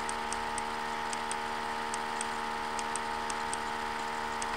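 Steady electrical hum made of several fixed tones, with faint, irregular high clicks from a stylus writing on a drawing tablet.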